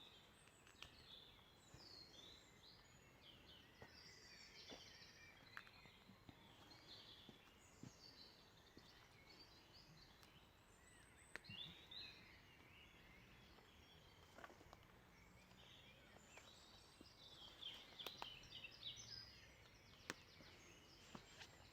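Faint birdsong: several small birds chirping and twittering on and off, with a few faint clicks.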